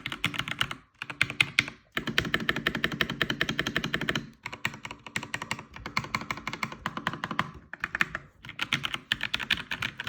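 Fast typing on a Keychron K2 V2 mechanical keyboard with red (linear) switches: quick runs of keystrokes broken by short pauses, as a typing test of the switch sound.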